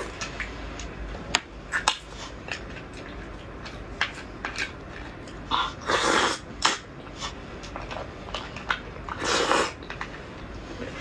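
Close-up eating of crab: scattered small clicks and cracks of the shell being bitten and pulled apart, with two longer, louder sucking sounds about six and nine and a half seconds in as meat is drawn from the shell.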